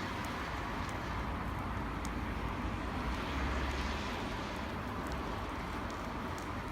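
Wood campfire crackling, with a few sharp small pops, over a steady low rumble.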